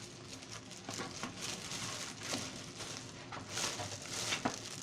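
Handling noise as a newly unboxed keyboard and its packaging are moved about: scattered light clicks and rustles, with a few short sniffs near the end as the new keyboard is smelled.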